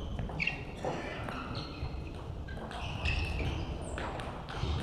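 Table tennis ball knocking off bats and the table in sharp, scattered clicks, with short high squeaks among them and the echo of a large sports hall.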